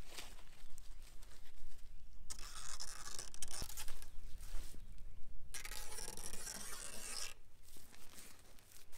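Synthetic insect netting rustling and scraping as it is pulled and handled by hand, in several long bursts.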